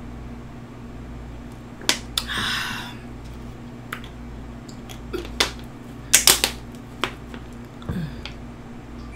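Close-miked mouth sounds after eating: a string of sharp, wet lip smacks and mouth clicks, several single ones and a quick cluster about six seconds in, with a short breathy hiss just after two seconds, over a steady low hum.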